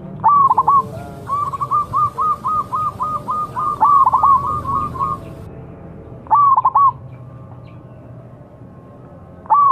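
Zebra dove (perkutut) calling in its typical staccato coo. A short cluster of notes comes first, then a quick run of rising-and-falling coos, about four a second, for some four seconds. Another short cluster follows about six seconds in, and a last one near the end.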